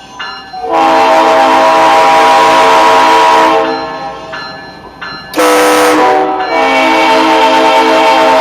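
Locomotive air horn sounds a long blast, fading out about three and a half seconds in. About five seconds in, a short car horn honk answers it, from a 2006 Scion xB's horn sounded by remote. The locomotive horn then sounds another long blast.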